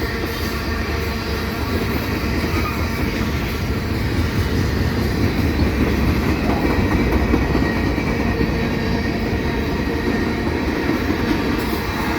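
Freight train cars rolling past close by: a steady rumble of steel wheels on the rails, a little louder in the middle.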